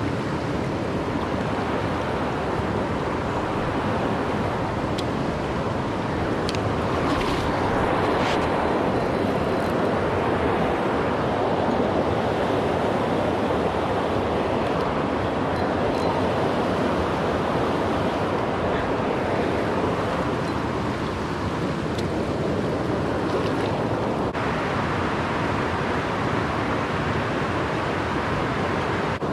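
Steady rush of a shallow river riffle flowing over rocks close to the microphone, with a few faint clicks.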